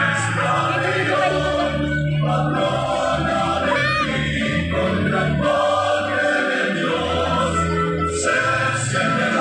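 Music with a choir singing, in held, slowly changing notes.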